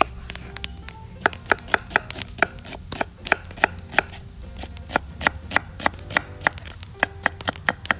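Knife chopping an onion on a wooden cutting board: quick sharp taps, about three to four a second, with a short pause near the middle.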